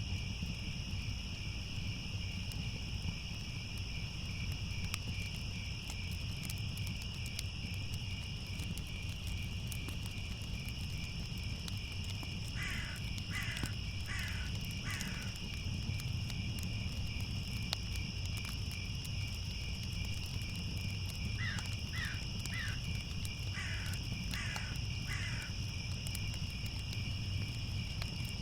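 Crickets chirping steadily, with a crow cawing over them: four caws about twelve seconds in and about six more a little past twenty seconds. A low steady rumble runs underneath.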